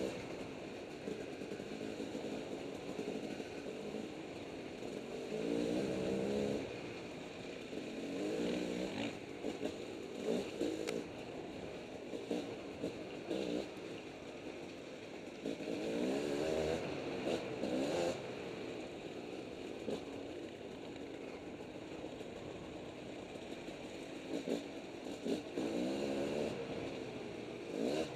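Two-stroke dirt bike engine heard on board, revving up and easing off in repeated bursts of throttle while riding a rough trail, with occasional short knocks.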